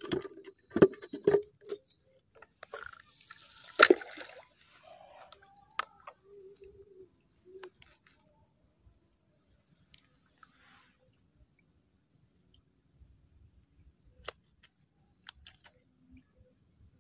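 A few handling clicks and knocks, the loudest a sharp knock about four seconds in, then a faint, high, evenly repeated chirping in short groups over quiet outdoor background.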